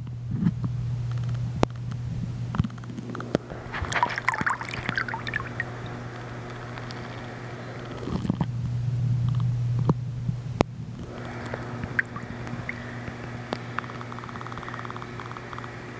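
Muffled water gurgling and bubbling around a microphone submerged in a swimming pool, over a steady low hum, with a burst of bubbles about four to five seconds in. About eleven seconds in, the sound changes as the microphone comes up out of the water.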